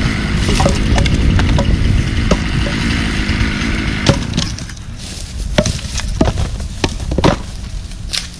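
A chainsaw idling between cuts for the first half, then fading, while a string of sharp wooden knocks and cracks sounds as chunks of dead tree wood fall and strike.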